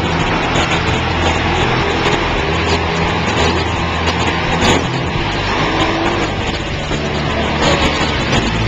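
Monster truck engine running loudly and steadily, a deep drone under a dense rush of noise, its note shifting about halfway through.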